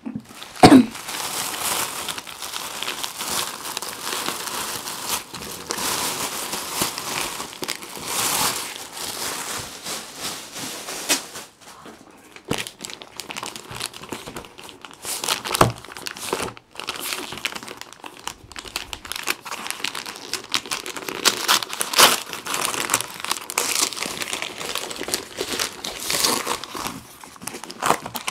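Thin plastic bag crinkling as it is pulled off a parcel, then white wrapping paper rustling and tearing as the parcel is unwrapped, with a single knock about a second in.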